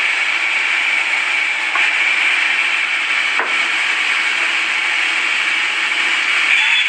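Sawmill saw cutting through timber: a steady, even noise with one sharp click about three and a half seconds in.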